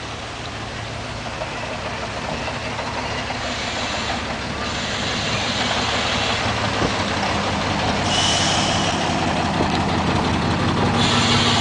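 Diesel railbus pulling into a station, its engine growing steadily louder as it approaches and draws alongside. Three bursts of high hiss from its air brakes start and stop abruptly as it slows.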